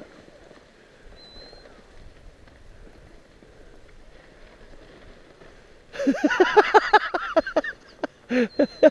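A child's voice, laughing or shrieking in a fast run of loud, high bursts, starting about six seconds in, with a few more bursts near the end. Before that there is only a faint, even background.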